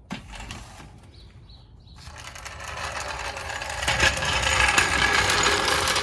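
Floor jack being rolled across a concrete driveway, its steel wheels rattling steadily and growing louder as it comes closer.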